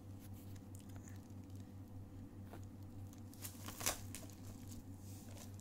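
Faint crinkles and clicks of a plastic blister pack being handled over bubble wrap, the sharpest about four seconds in, over a steady low hum.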